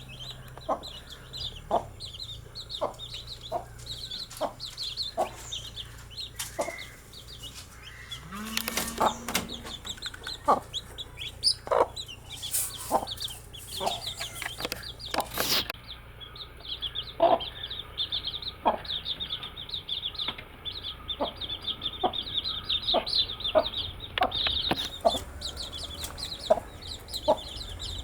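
Baby chicks peeping continuously in quick, high chirps, over short, lower clucks that repeat about once a second. A few sharp knocks come in the middle.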